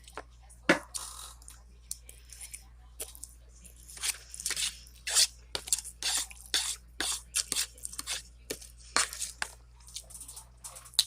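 Close-up chewing and crunching of food: a string of short, irregular crisp crunches.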